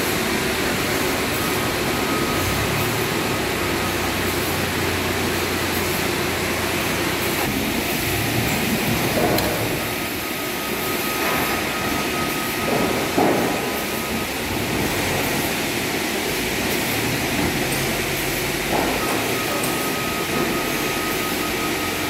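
Sawmill log-handling machinery running: a powered roller and chain conveyor carrying heavy logs, a steady mechanical rumble with a thin whine that comes and goes. A few knocks, the loudest a little past the middle.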